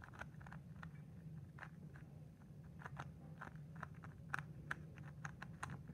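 Convex Megaminx puzzle's plastic layers being turned by hand: a string of faint, irregular clicks and clacks, with a few sharper ones around the middle.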